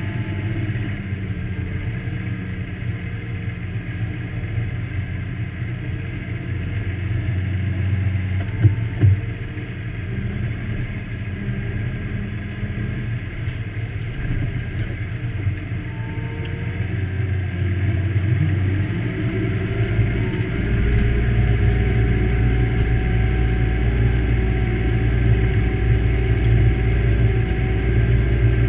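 Fendt 724 tractor's six-cylinder diesel engine heard from inside the cab, running steadily, with two sharp knocks about nine seconds in. About twenty seconds in the engine note rises and grows louder and deeper as it takes up load with the six-furrow plough in work.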